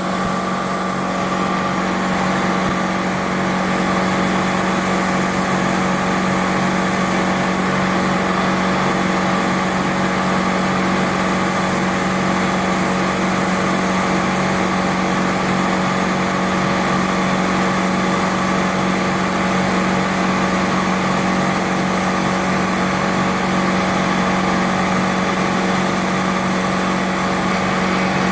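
Milling machine running steadily, a constant hum with a steady high hiss over it.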